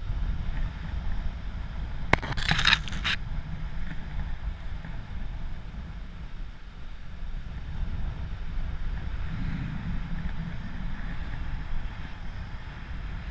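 Wind rumbling on the microphone, with a brief crinkling rustle about two seconds in.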